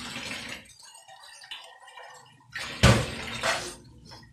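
Kitchen handling sounds. A hiss fades out in the first second, then a loud knock followed by a brief rush of noise about three seconds in.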